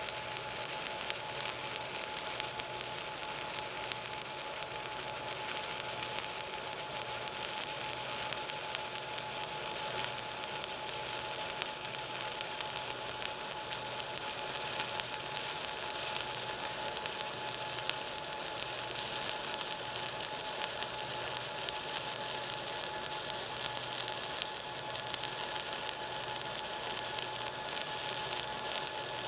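Overhead stick (SMAW) welding arc burning a 7018-1 electrode at about 118 amps while the root pass is run: a steady, even crackle and sizzle full of small pops.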